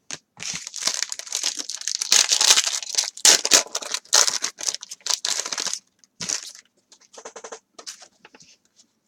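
Foil wrapper of a trading-card pack being torn open and crinkled: dense crackling for about six seconds, then scattered softer crinkles as the cards come out.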